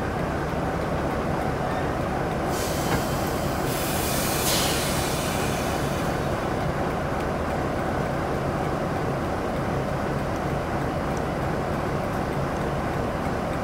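Class 47 diesel locomotive's Sulzer V12 engine idling with a steady low hum. Compressed air hisses out twice, about two and a half and four and a half seconds in.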